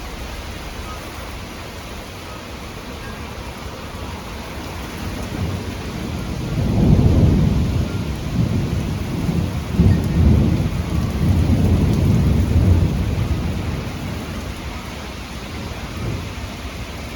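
Thunderstorm with steady heavy rain and a strong wind gust, estimated at 50 to 55 mph. The gust swells in about five seconds in and surges several times into a deep rumble before easing off near the end.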